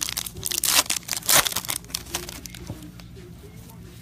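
A trading-card pack wrapper being crinkled and torn open: a flurry of quick rips in the first two seconds, then quieter rustling.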